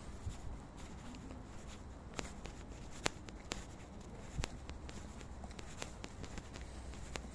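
Faint sounds of walking with a handheld phone: a few sharp, irregularly spaced clicks of steps and handling over a steady low rumble.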